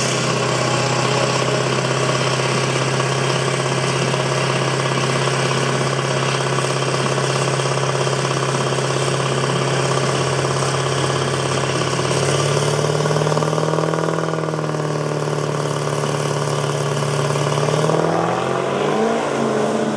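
Pickup truck engine running at a steady idle, stepping up a little in pitch about twelve seconds in. Near the end it revs up with a rising pitch as the truck launches.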